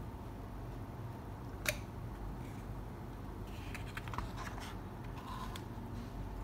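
Glossy pages of a large artbook being handled and turned: a sharp paper snap a little under two seconds in, then light crackling and clicking as a page is turned over, over a steady low hum.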